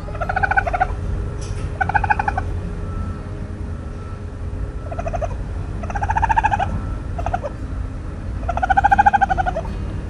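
Raccoon calling: about six trilled cries, each a rapidly pulsing pitched call lasting from a fraction of a second to about a second. The longest and loudest is near the end. A steady low rumble runs underneath.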